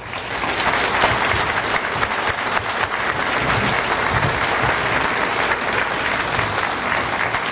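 An audience applauding steadily, many hands clapping at once, starting suddenly and holding on throughout.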